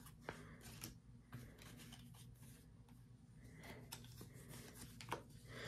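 Near silence with a few faint clicks and light rustles of Pokémon trading cards being handled and set down on a playmat.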